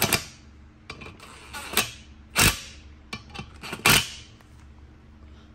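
Cordless power driver run in four short bursts, snugging down the 13 mm side bolts of a valve spring compressor on a Hemi cylinder head.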